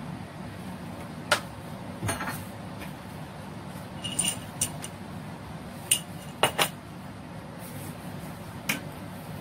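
Scattered kitchen clinks and taps, about eight short, sharp ones, some in quick pairs, as cooking utensils and containers are handled, over a steady low hum.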